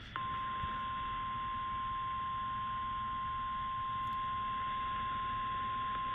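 NOAA Weather Radio warning alarm tone: a single steady tone of about 1050 Hz that comes on just after the start and holds without a break, over radio hiss. It signals that an urgent warning message is about to be read.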